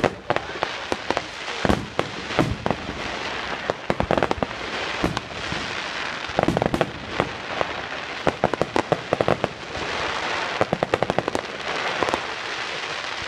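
Aerial fireworks going off: sharp bangs with bursts of rapid crackling, again and again, over a steady background hiss.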